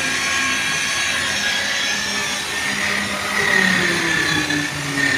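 Handheld electric rotary car polisher running as it buffs a car's painted door and mirror, a steady motor whine whose pitch wavers and sags a little partway through.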